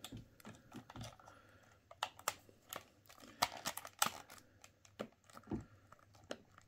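Hard plastic clicks and taps from a Hasbro Zam Wesell speeder toy as its spring-loaded crash-damage panels are pushed back into place and the parts handled. The clicks are irregular and loudest about two to four seconds in.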